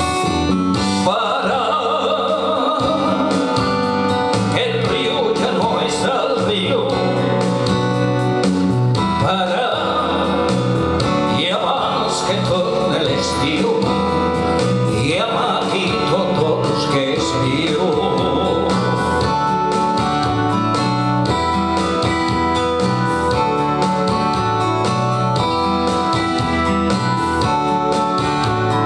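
Male singer performing a slow ballad live into a microphone over instrumental accompaniment. The voice is heard over roughly the first twenty seconds; after that the accompaniment carries on alone with sustained notes.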